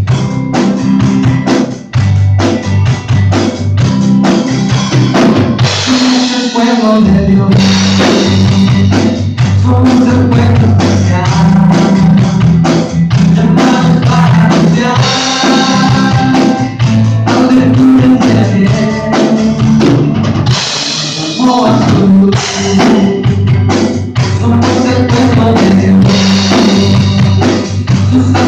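Live worship band playing: a drum kit keeps a steady beat under acoustic and electric guitars.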